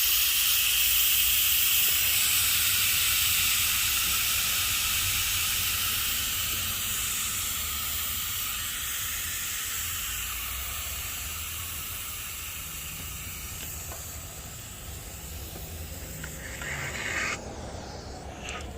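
Pressurised leak-test air (250 PSI) hissing out of a Nissan Patrol's air-conditioning system as the pressure is released before evacuation. The hiss fades steadily as the pressure drops and stops abruptly near the end.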